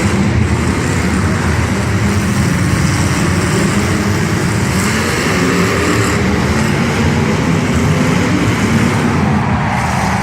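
Demolition derby car engines running loud and unmuffled: a steady, heavy low rumble.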